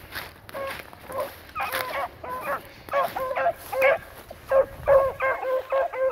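Beagles baying on a scent trail: a steady string of short, pitched calls, about two to three a second, getting louder in the second half.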